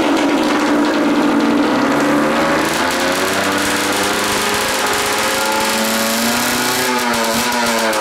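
Kawasaki KDX200's single-cylinder two-stroke engine running just after a kick start: it holds a steady speed at first, then is revved up and down from about two seconds in. The engine is running rich.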